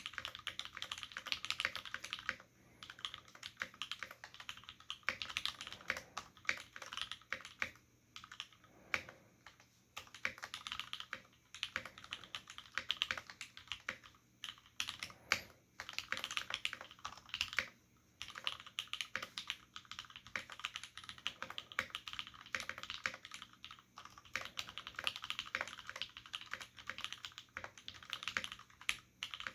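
Continuous fast typing on a mechanical keyboard with lubed Cherry MX Black linear switches on an aluminium full plate and Cherry dye-sub keycaps, giving a dense run of keystroke clacks in runs of a few seconds with short pauses between.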